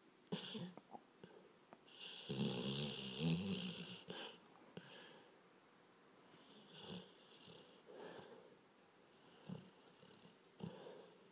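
A sleeping yellow Labrador-type dog snoring: one loud, long snore about two seconds in, then several shorter, quieter snoring breaths.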